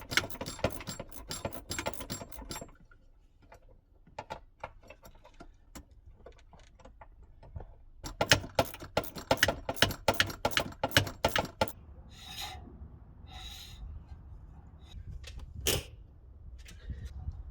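Rapid metallic clicking of hand tools at work on the car, in two long fast runs with sparser clicks between. Near the end come two short hisses and one sharp knock.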